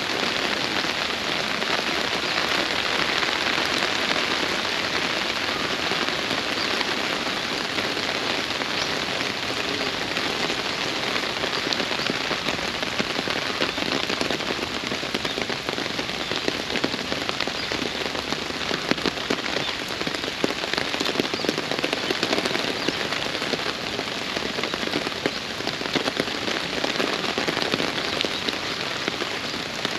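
Steady rain falling, a constant patter with many separate drop ticks.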